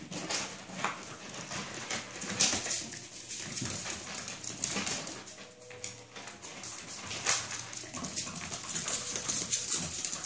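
Chihuahua puppies playing: irregular quick scrabbling and pattering of small paws and claws on a hard floor, with an occasional faint puppy whine.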